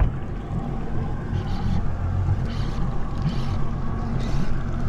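Yamaha 250 outboard motor idling steadily, with a spinning reel being cranked in short spells as a hooked fish is reeled up.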